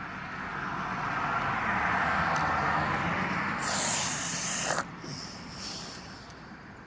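A steady hiss that swells over a few seconds, turns into a brighter rush near its end, and cuts off suddenly about five seconds in.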